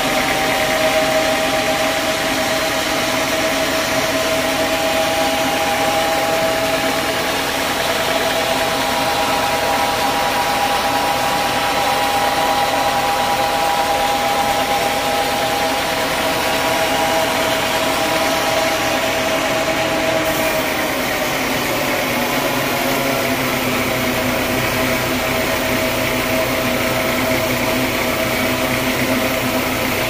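Large band sawmill running, its blade cutting lengthwise through a big log: a steady mechanical drone with a wavering whine, which changes about two-thirds of the way through.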